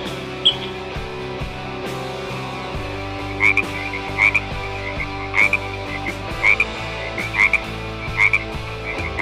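A frog croaking in short calls, about one a second from a few seconds in, over steady background music.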